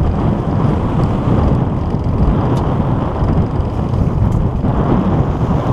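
Strong wind buffeting the microphone: a loud, unbroken, gusting rumble with no speech over it.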